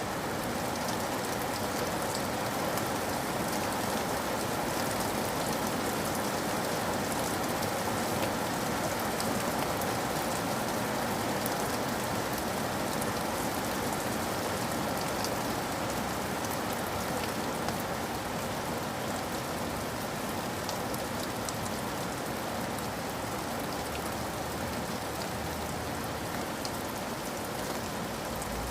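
Steady rain falling, with fine drops pattering on a surface.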